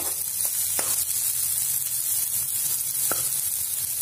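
Chopped onions, garlic, ginger and green chilli sizzling in hot oil in a kadhai as they brown for a tadka. A metal spatula stirring them clicks a few times against the pan.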